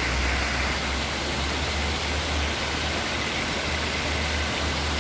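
Small overflow waterfall: water pouring steadily over rocks in a constant rushing hiss with a low rumble beneath.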